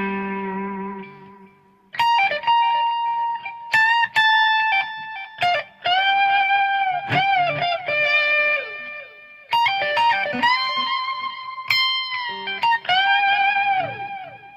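Fender American Special electric guitar through a Hiwatt amp, playing a slow lead solo: sustained single notes with string bends and vibrato, in several short phrases.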